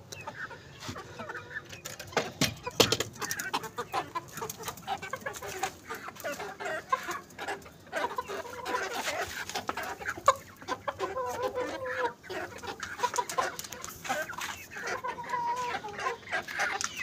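A flock of chickens clucking while they feed, with many short sharp taps of beaks pecking in a plastic feed dish.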